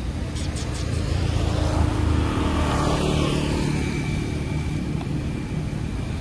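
A motor vehicle's engine running steadily, a low hum that grows a little louder partway through as it passes.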